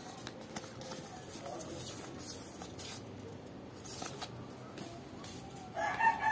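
Stiff cardstock Monopoly title deed cards rustling and flicking softly as they are leafed through by hand. Near the end a much louder, drawn-out pitched call cuts in and carries on for over a second.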